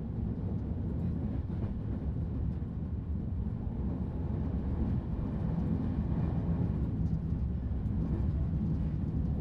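A train running, a steady low rumble.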